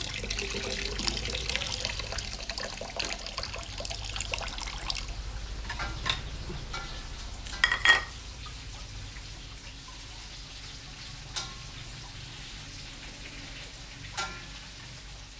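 Water running for the first few seconds, then a few separate knocks and clinks, the loudest about eight seconds in.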